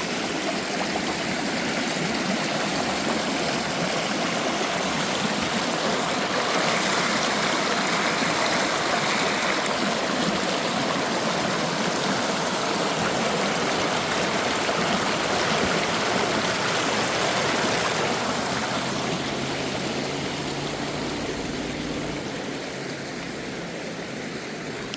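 River water rushing, a steady loud rush that eases slightly about three quarters of the way through.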